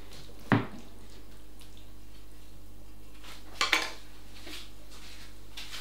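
Kitchen pans and utensils knocking and clinking: one sharp knock about half a second in, then a short clatter of lighter clinks around three and a half seconds.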